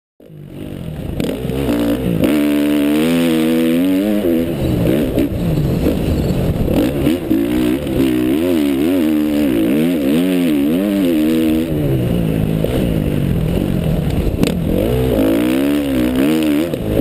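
KTM 350 SX-F dirt bike's single-cylinder four-stroke engine running hard on a trail ride, its pitch rising and falling over and over as the throttle is opened and closed.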